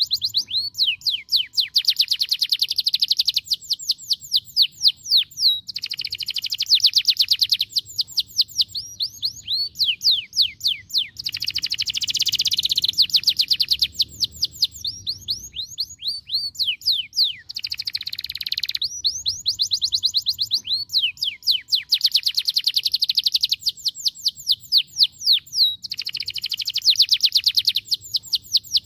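Domestic canary singing: fast trills of repeated high, downward-sweeping notes in phrases a few seconds long, separated by short pauses.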